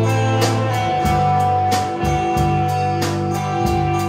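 Live rock band playing electric guitar, acoustic guitar and drums: long sustained guitar notes over a steady drumbeat.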